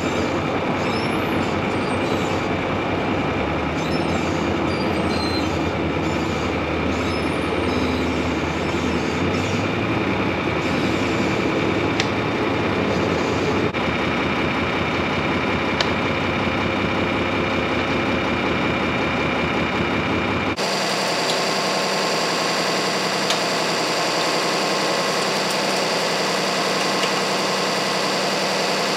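John Deere tractor's diesel engine running steadily, heard from on the tractor, with a few faint clicks. About twenty seconds in the sound changes abruptly to a steadier, thinner idle.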